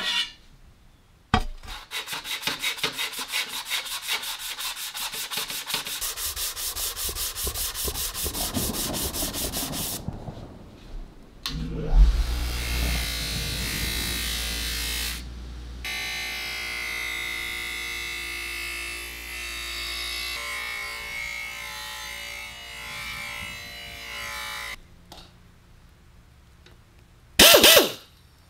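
Rapid, even scratching strokes for about eight seconds. Then a bench grinder fitted with a buffing wheel starts up suddenly and runs steadily with a hum while a metal part is held against the spinning wheel. Near the end comes a short, loud burst from a hand-held air polisher.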